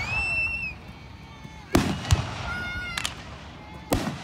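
Aerial fireworks bursting overhead: a string of sharp bangs, two close together near the middle and another near the end, with high whistling tones rising and holding between them.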